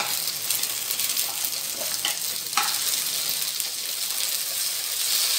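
Sliced onions and other vegetables sizzling in hot oil in a stainless steel pan as aromatics are sautéed, a steady frying hiss. Two light knocks of the spatula and vegetables against the pan come a little after two seconds in, during stirring.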